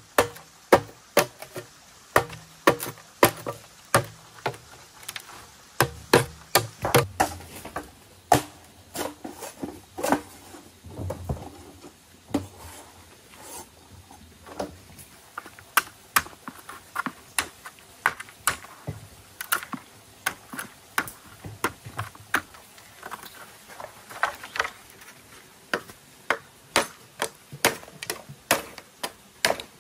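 Repeated sharp knocks of a hand tool striking wood, irregular, a few blows a second.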